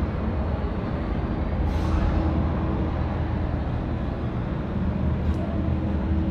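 Steady low mechanical rumble with a constant hum, broken by a short hiss about two seconds in and a fainter brief hiss near the end.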